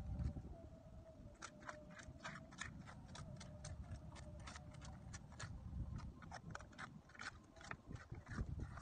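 Irregular small clicks and knocks of clam shells and stones being picked over by hand while gathering clams among shoreline rocks, over a low rumble of wind and a faint steady hum.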